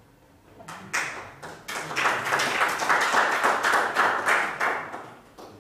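Audience applauding: a few scattered claps about a second in swell into full applause, which thins out and stops just before the end.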